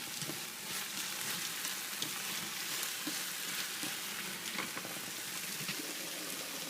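Garlic and ají panca frying in hot oil in a pan: a steady sizzle with scattered small pops.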